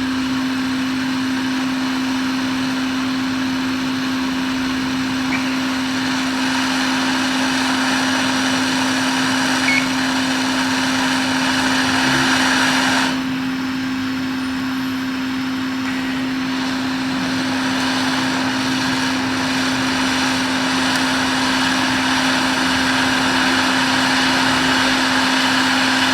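Hot-air rework station blowing steadily, a fan hum under an airy hiss, while the replacement audio amplifier chip is soldered onto a MacBook logic board. The hiss dips about halfway through, then slowly builds back.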